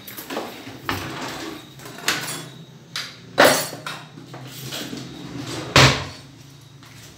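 A series of irregular knocks and clunks from things being handled in a kitchen, the two loudest about three and a half and six seconds in.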